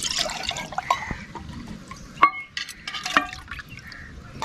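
Milky liquid splashing and trickling as it is poured from a metal bowl into a clay pot. Two sharp metallic clinks come about two and three seconds in, as the metal vessels knock together.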